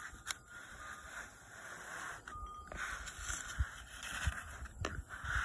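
Kinetic sand being scraped and smoothed with a plastic scraper in a dish: a soft, gritty scraping in several strokes, with a few small clicks and light knocks.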